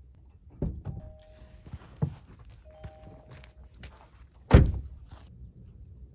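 A few knocks and thuds of a car door and gear being handled, ending in one heavy thud about four and a half seconds in as a door shuts. Two short two-note beeps sound in between, about a second apart.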